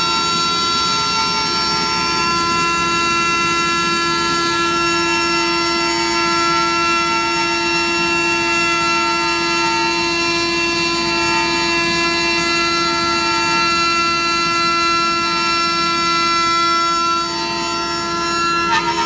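CNC router spindle driving a 1/2-inch four-flute roughing ball end mill through plywood: a steady whine made of several held tones over the rasp of cutting. The level dips slightly near the end, and a short sharp click falls right at the end.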